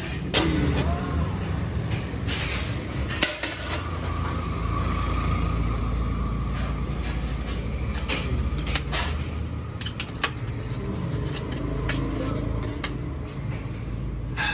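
Thin stainless steel sheet and a rolled stainless cylinder being handled and fitted together by hand, giving scattered light metallic clinks and rattles, louder once about three seconds in and a few times between eight and ten seconds. A steady low machine hum runs underneath.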